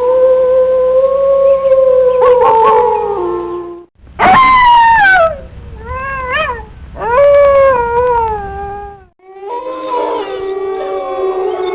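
Wolves howling. A long, steady howl sags in pitch at its end. After a short break comes a howl sliding down from a high start, then a few short rising-and-falling howls and another falling howl. Near the end, several wolves howl together in overlapping tones.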